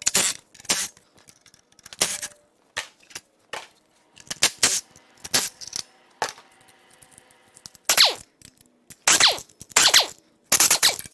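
Cordless impact wrench and ratchet running in repeated short bursts, zipping out turbocharger and exhaust manifold bolts, with a longer spin of the tool a little past halfway and metal clinks between bursts.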